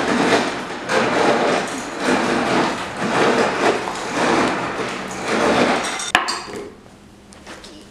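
Ice machine dispensing ice: a loud noise that comes in surges about once a second and stops about six seconds in, with a sharp click.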